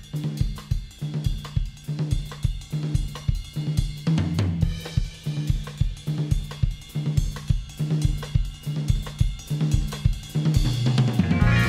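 Background music: a drum-kit groove with snare, hi-hat and kick drum over a steady bass line, with guitar coming in near the end.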